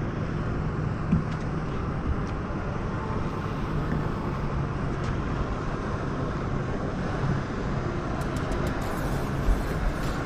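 Steady wind noise on the microphone with a low, steady hum underneath, and a couple of light knocks on the boat, about a second in and near the end.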